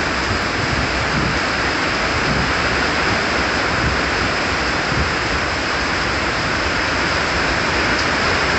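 Hurricane Ian's heavy rain and strong wind, a steady, dense rush of rain with an uneven low rumble underneath.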